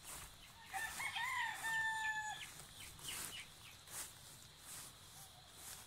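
A game fowl rooster crowing once, about a second in: one long call of nearly two seconds that rises at the start and then holds steady.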